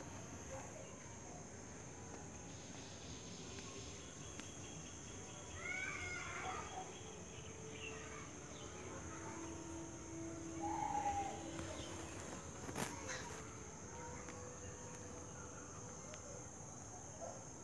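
Quiet rural evening ambience: a steady high insect drone, with a few scattered bird calls, the clearest about a third and about two-thirds of the way through, and one sharp click shortly after.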